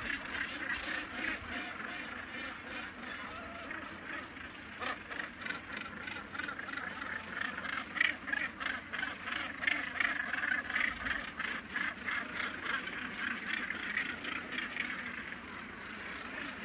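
A northern gannet colony calling: many birds giving harsh, rapidly repeated calls that overlap without a break, the calling busiest and loudest around the middle.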